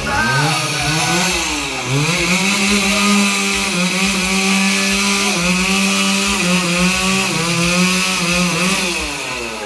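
Two-stroke chainsaw revving up and running at high revs while cutting wood, its pitch stepping down a little now and then under load and falling away near the end as the throttle is released.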